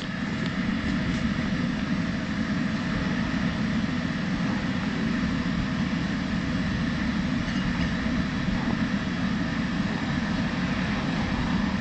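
Steady low drone of an inflatable bouncy castle's electric blower fan running continuously.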